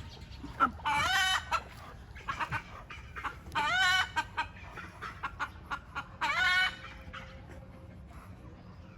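Chickens clucking, with three louder drawn-out calls about two and a half seconds apart among many short sharp clucks.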